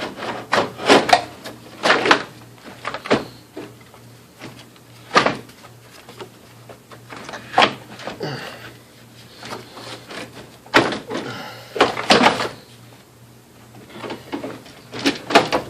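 Car radiator being wrestled and pried out of the engine bay: irregular clunks, knocks and scrapes as it catches on the transmission cooler lines at the bottom and is worked free.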